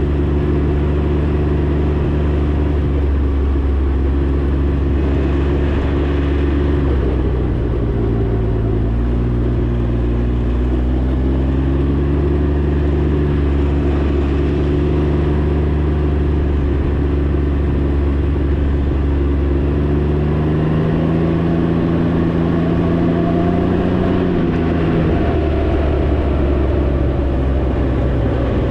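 Can-Am Ryker 900's three-cylinder engine running steadily under way, its pitch shifting with throttle. The pitch dips about seven seconds in, climbs from about twenty seconds and drops back near twenty-five seconds.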